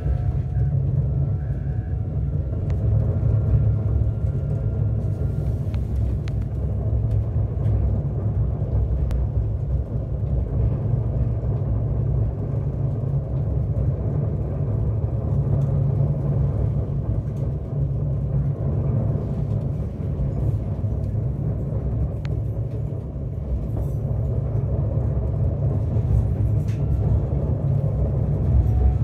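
Passenger train running, heard from inside the carriage: a steady low rumble with a few faint clicks here and there.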